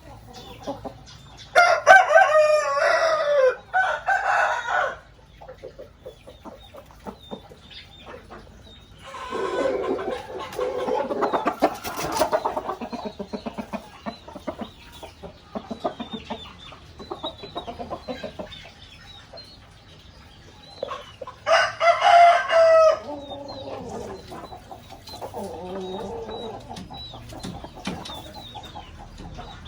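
A rooster crowing loudly, once a couple of seconds in and again about 22 seconds in, with chickens clucking and calling in between.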